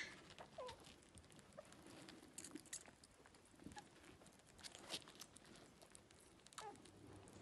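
Faint small clicks and rustling of a puppy and baby squirrels suckling at a nursing dog, with a couple of brief high squeaks from the young.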